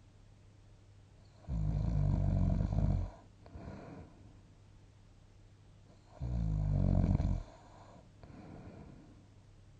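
A sleeping person snoring: two long, loud snores about five seconds apart, each followed by a softer breath.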